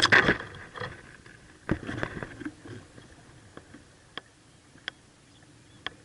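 Rustling and scuffling in a baby mockingbird nest: a sudden burst at the start, another about two seconds in, then a few single sharp ticks.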